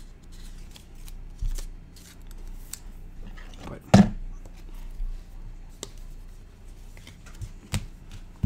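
Trading cards being handled on a tabletop mat: scattered light clicks and rustles of card stock, with one sharper tap about four seconds in.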